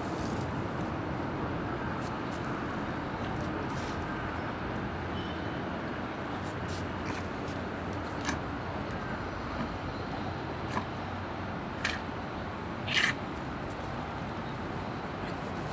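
Steady outdoor background noise with a few short, sharp clicks in the second half, the loudest near the end.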